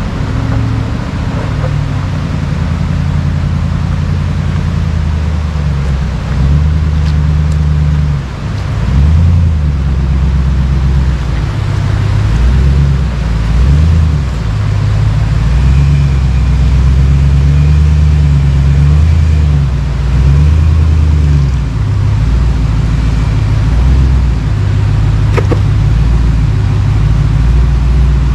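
Power Wagon truck engine running at low revs while crawling over trail rocks, its pitch stepping up and down as the throttle is worked.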